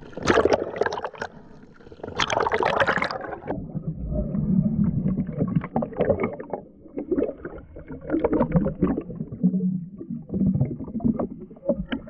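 Water sloshing and bubbling in irregular surges around a camera in the water, sharper and brighter in the first few seconds, then duller and more muffled.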